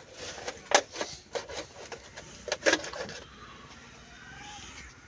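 Short rubbing and knocking strokes of hands and a rag working on the metal of a stopped old Ruston diesel engine. There are a handful of them in the first three seconds, the loudest just under a second in and again near three seconds in.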